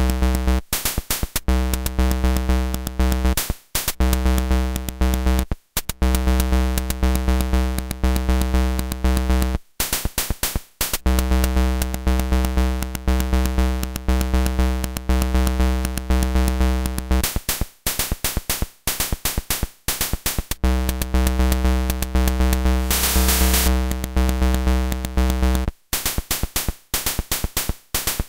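Lo-fi, 8-bit-style drum sequencer of a circuit-bent toy keyboard playing a fast, buzzy kick-and-snare pattern with a deep low end. The pattern breaks off and changes pace several times as its 1/1–1/6 division slider is moved.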